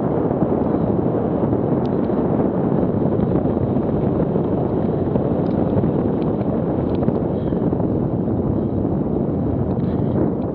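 Wind rushing over an action camera's microphone on a mountain bike riding fast along a rutted dirt track, mixed with the steady rumble of knobbly tyres on the ground. A few faint clicks sound through it.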